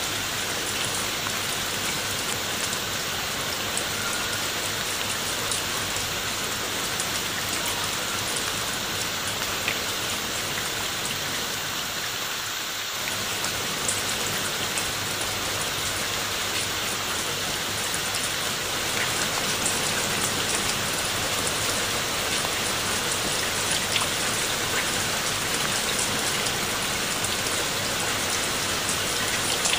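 Steady rain falling on leaves and wet stone steps, a constant hiss with scattered sharper drop ticks.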